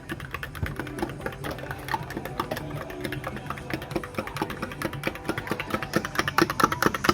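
Pop Ice drink with ice being shaken hard by hand in a cup or shaker, a fast, even rattling that keeps up throughout.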